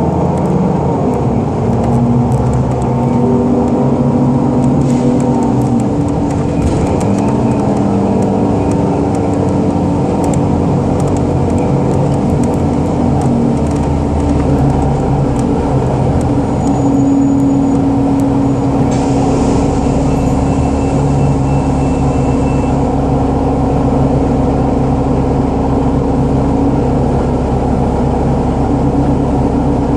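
Inside a 2010 30-foot Gillig BRT transit bus: the bus's engine and drivetrain run with a steady low drone as it drives slowly, the engine note shifting deeper about halfway through.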